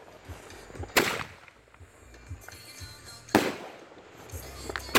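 Aerial shell bursts from a World Class 'Believe' 9-shot 3-inch finale cake. Two loud, sharp reports, one about a second in and one past three seconds, each trail off in a rolling echo, and a third report comes right at the end.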